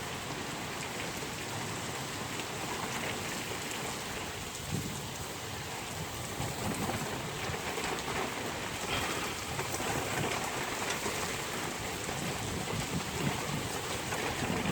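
Steady rain falling in a storm, an even continuous hiss with no clear breaks.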